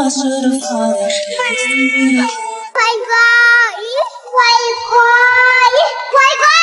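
A young child singing in a high voice, holding long notes of about a second each with sliding pitch, from about three seconds in. Before that, a lower voice or music line fades out.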